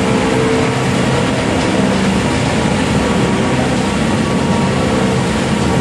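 Film, plastic bag and textile shredder line running under load, with waste going up its feed conveyor: a loud, steady machine noise with a steady hum.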